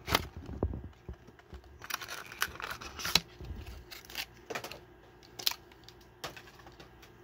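Plastic blister packaging being torn open and pulled off its cardboard card, crinkling and crackling, with a denser burst of crinkling about two seconds in. A few sharp clicks follow as the freed diecast car and its packaging are handled.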